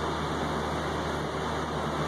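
Rain falling steadily on a balcony, an even hiss with no single drops or knocks standing out.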